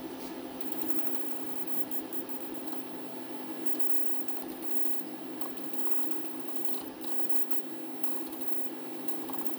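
Milling machine running with a steady mechanical hum while an edge finder is brought up to the work, with a few faint clicks.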